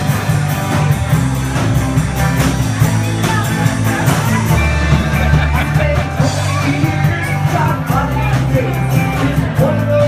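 Rock band playing live: drums, bass and guitars, with a singing voice standing out from about four seconds in.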